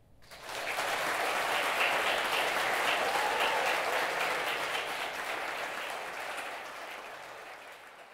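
Audience applauding, breaking out about half a second in and slowly dying down before fading out near the end.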